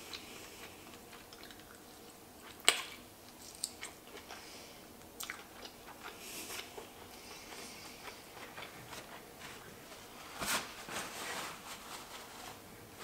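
Close-up eating sounds of cooked lobster: quiet chewing and handling of shell and meat. A sharp click comes about three seconds in, smaller ones follow, and a short crunchy cluster comes near ten seconds.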